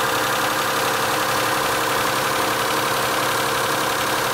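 Mitsubishi 6A13 2.5-litre 24-valve V6 idling cold with a steady fast ticking from the valvetrain: the clatter of worn hydraulic lash adjusters (lifters).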